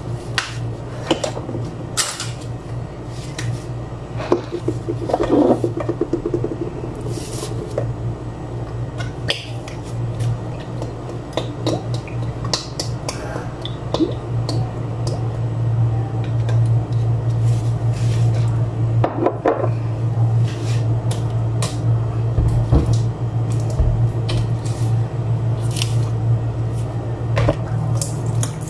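Hands squeezing and mixing raw chicken wings in marinade in a plastic basin: wet squishing, with scattered knocks and clinks of bottles against the basin, over a steady low hum.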